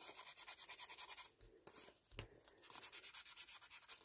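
Ink blending tool's foam pad rubbed quickly back and forth along the edge of a paper tag, inking its edge. It is a faint, fast scrubbing in two spells of about a second each, the second starting near the middle.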